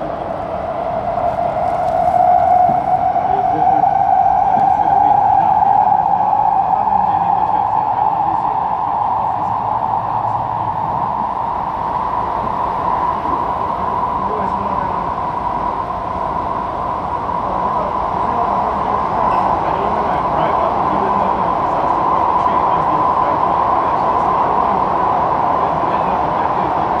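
Kawasaki Heavy Industries & CSR Qingdao Sifang C151A metro train heard from inside the carriage: the traction motor whine rises in pitch over the first several seconds as the train accelerates, then holds steady at running speed, over the rumble of the wheels on the track.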